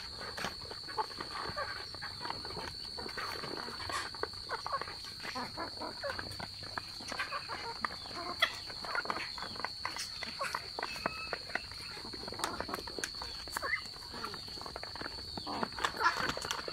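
A flock of Muscovy ducks and chickens pecking rice from a shallow tray: many rapid bill taps and clicks against the tray, mixed with short clucks and calls from the birds. A steady high-pitched tone sits underneath.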